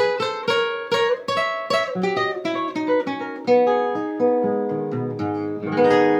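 Requinto, a small high-tuned nylon-string guitar, played solo: picked single notes about four a second, then lower notes stepping down and left ringing, ending on a strummed chord near the end.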